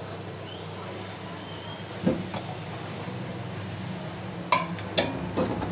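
Steady low hum of a cylinder-honing machine, with sharp metallic clinks and knocks as a motorcycle cylinder block and honing parts are handled on its wet steel grate: one about two seconds in and a quick run of three louder ones near the end.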